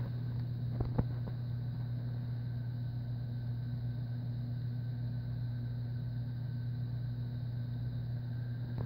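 Steady low mechanical hum, with two brief soft knocks about a second in.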